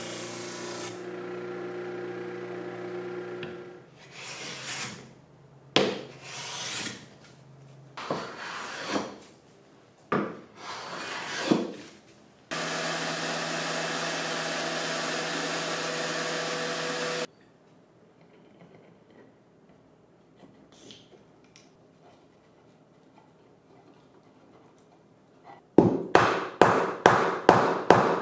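Benchtop disc sander running with a walnut piece held against the disc; the grinding drops away about a second in and the motor runs on alone until it stops. A series of short rubbing strokes on wood follows, then a Festool random orbital sander runs steadily on a walnut panel for about five seconds and cuts off. Near the end comes a quick run of mallet taps, about four a second, knocking a table leg into its joint.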